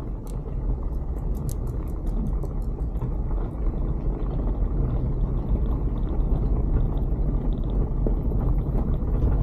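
Inside the cabin of a Jeep Wrangler being driven: a steady low engine and road rumble, with light clicks and rattles over the first couple of seconds.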